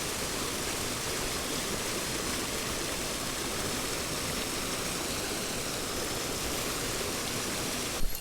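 Mountain stream water rushing steadily, an even hiss with no break, which cuts off abruptly just before the end.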